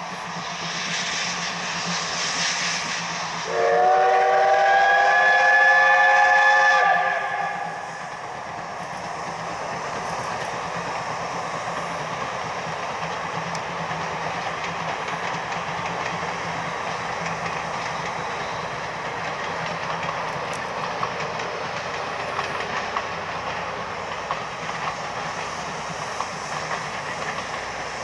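C12 66 steam tank locomotive sounding its steam whistle in one long blast of about four seconds, several tones at once. Before and after the whistle comes the steady noise of the train running along the track.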